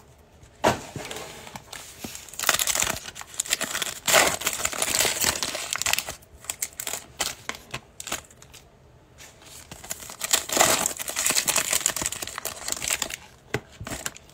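Foil wrappers of Panini Prizm football card packs crinkling and tearing as the packs are opened and the cards handled. It comes in irregular bursts with quieter gaps between.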